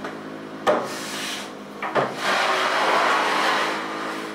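A large sheet of 25 mm coated plywood knocking down onto a wooden workbench top twice, then sliding across it with a long scraping rub.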